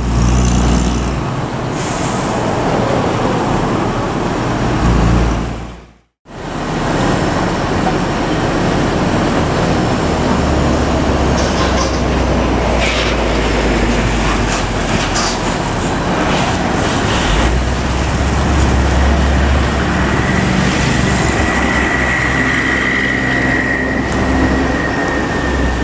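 Heavy road traffic at close range: diesel trucks and buses running and passing, with a deep engine rumble and road noise. The sound drops out completely for a moment about six seconds in. A thin high whine rises over the traffic for a few seconds near the end.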